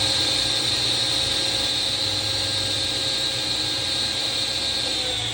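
Laguna F2 table saw's 1.75 hp motor running free with a dado stack fitted, a steady high whine over a spinning hum. Near the end the whine starts to drop in pitch as the saw is switched off and spins down.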